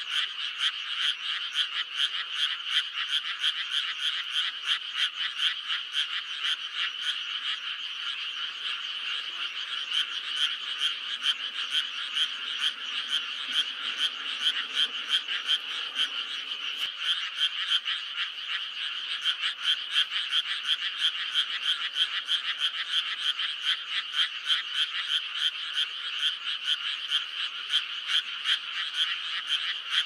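A dense chorus of many frogs calling at once: a continuous fast chatter of overlapping croaks that keeps going steadily without a break.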